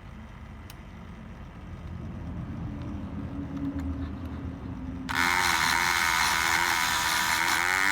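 A Dremel rotary tool fitted with a Drempick pick-gun attachment switches on about five seconds in. It runs at a steady pitch with a loud, high buzz as the pick needle works in a lock cylinder.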